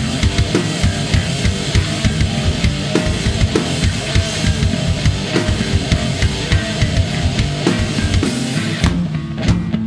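Live rock band playing loud and drum-heavy: a drum kit keeps a busy beat on bass drum and snare under electric bass and electric guitar.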